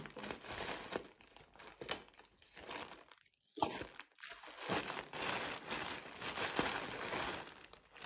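Plastic mailer bag crinkling and rustling as it is cut open with scissors and pulled about, with a short pause about three seconds in.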